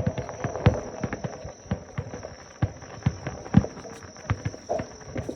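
Fireworks bursting in a rapid, irregular series of bangs and crackles, with a few much louder booms among them.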